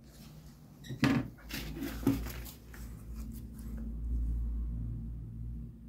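Cardboard sample pieces handled with gloved hands and set down on a table: a sharp knock about a second in and another a second later, with rustling and scraping between, then a low hum.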